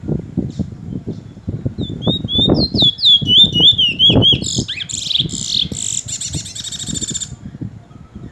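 Caged bullfinch singing: a run of sharp rising whistled notes, about three a second, then a fast, higher trill that stops about seven seconds in. Irregular low thumps run underneath.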